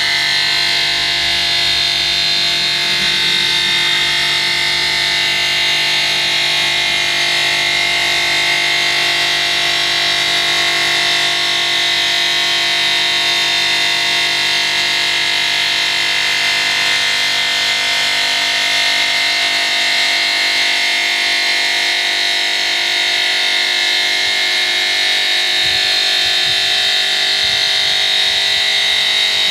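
5-axis CNC stone cutting machine running, its spindle and tool cutting stone for an undermount sink opening, a steady high-pitched whine that holds at the same level throughout.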